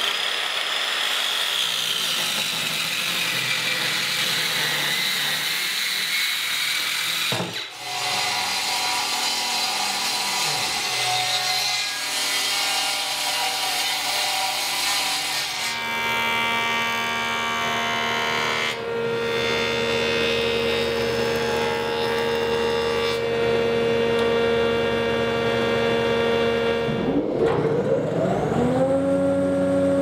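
A handheld circular saw cutting sweet chestnut boards: a high whining cut, briefly broken once. About halfway through the sound changes to a jointer running steadily with a board fed across it. Near the end another woodworking machine spins up with a rising hum and settles to a steady pitch.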